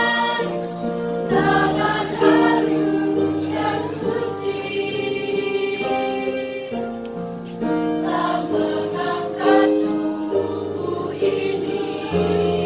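Female choir singing in harmony, several voice parts holding chords that change every second or two.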